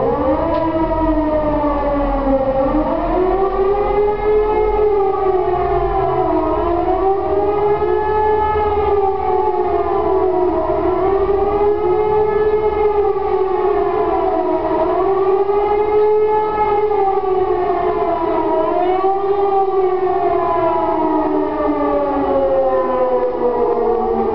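E57 electro-mechanical civil-defence siren sounding the 'Warnung' public-warning signal: a loud wailing tone rising and falling about every four seconds, with several pitches sounding together. It winds up at the start.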